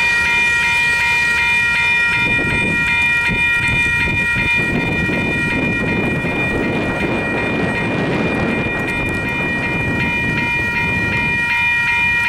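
Grade-crossing bell ringing in steady, evenly repeated strokes as a freight train of tank cars and boxcars rolls past, its wheels rumbling and clacking on the rails, the rumble strongest in the middle.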